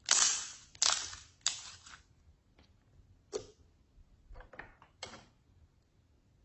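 Slime being handled and mixed by hand: a series of sudden crackly bursts that fade quickly. Three loud ones come close together in the first two seconds, then fewer and softer ones follow.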